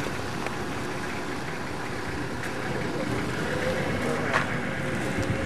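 SUV engine running as the vehicle drives across a dirt yard, with a short knock about four seconds in.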